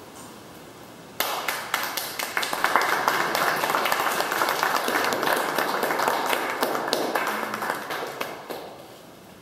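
Audience applauding, starting suddenly about a second in and dying away near the end.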